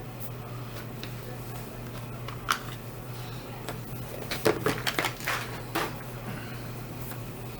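Small clicks and short scrapes of integrated-circuit chips and tools being handled on a workbench: one click about two and a half seconds in, then a quick cluster between about four and six seconds, over a steady low hum.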